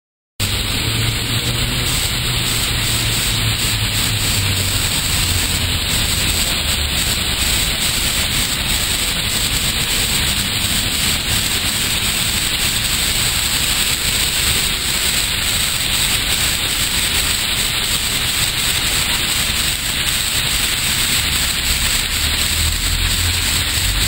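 Water cascading down a brick-wall waterfall feature, a steady, loud hiss of falling and splashing water that begins abruptly just after the start.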